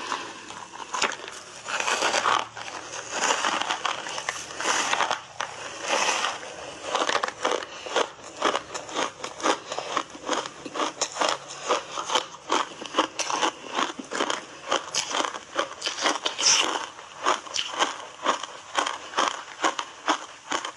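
Biting and chewing a slab of ice coated in matcha powder: crunching bites over the first few seconds, then a quick, steady run of chewing crunches, several a second.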